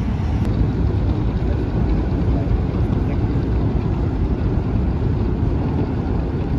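Low, steady rumble of the Stena Line ferry Stena Flavia's engines as the ship sails close by.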